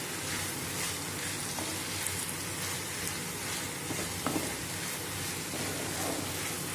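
Chapati strips and vegetables sizzling in oil in a non-stick frying pan as they are stirred and tossed with a wooden spatula, with a steady frying hiss and a few soft knocks of the spatula, the clearest about four seconds in.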